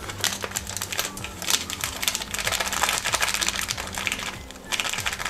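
Dense crinkling and crackling of a plastic spice packet as tikka masala is shaken into a mixing bowl, easing off briefly about four seconds in.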